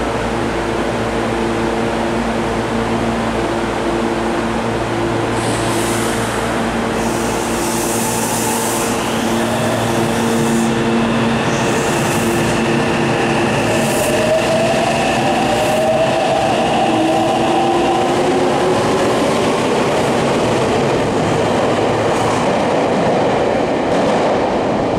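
Meitetsu 300-series electric train pulling out of an underground platform. Steady equipment hums at first, then short bursts of air hiss, then the motors' whine climbing in pitch as the train gathers speed past, with the rumble of the wheels.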